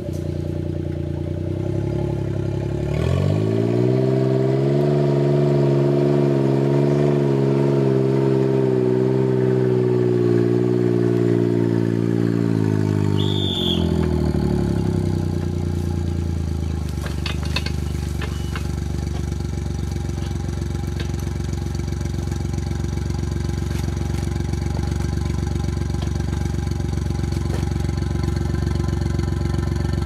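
Suzuki Jimny JA11's small three-cylinder engine revving up about three seconds in and held at high revs for around ten seconds, then dropping back to a steady idle.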